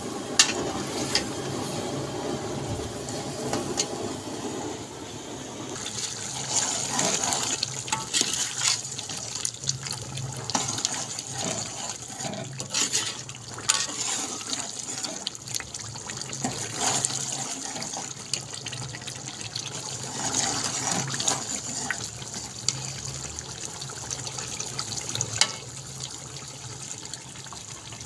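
Chicken and potato curry bubbling in an aluminium pot, with a metal ladle stirring and now and then clinking against the pot.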